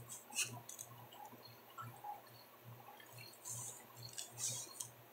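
Faint handling noises: light clicks and rustles as a plate of pizza is held and tilted. Two short, soft hisses come in the second half.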